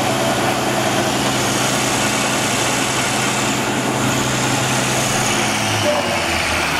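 Electric motor of a Van de Graaff generator running with a steady hum as it drives the belt through its pulleys; the hum cuts out about five seconds in.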